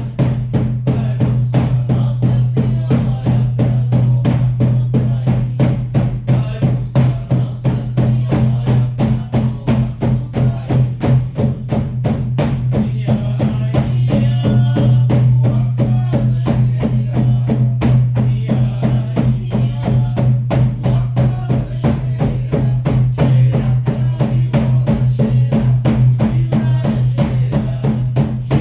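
Shamanic frame drums beaten in a steady, fast, even rhythm of about four strokes a second, their low boom sustained under the beats: the monotone drumming of a shamanic journey.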